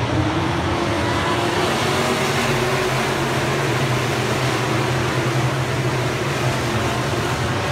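A pack of dirt-track race cars running at speed around the oval, their engines blending into one loud, steady noise.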